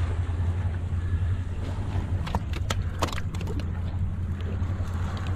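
Wind on the microphone, a steady low rumble, with a few light clicks and taps about two to three seconds in as the landing net and the trevally in it are handled on the rock.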